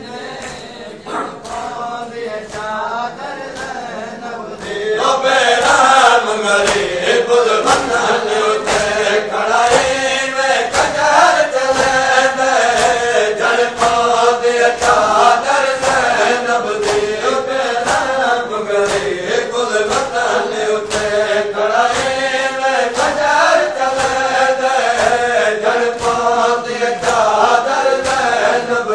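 Men's voices chanting a noha, a Shia mourning lament, over a steady rhythm of chest-beating (matam) slaps. The chanting gets louder about five seconds in.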